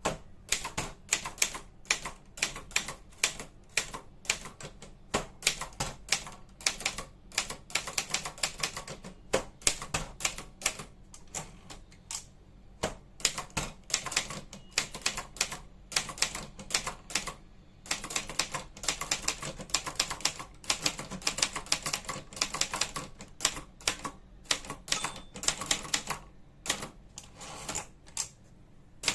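Brother Deluxe 220 typewriter being typed on: a quick, uneven run of key strikes, several a second, with short breaks about twelve seconds in and near the end.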